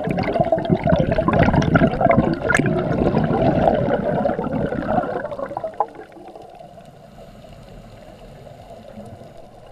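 Underwater bubbling of a diver's exhaled air, loud and irregular for about the first five and a half seconds, then giving way to a quieter steady underwater hush.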